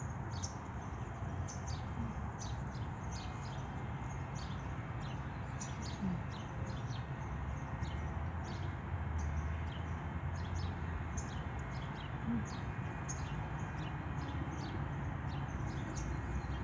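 Small birds chirping: a steady stream of short, high chirps every second or so, over a low steady rumble.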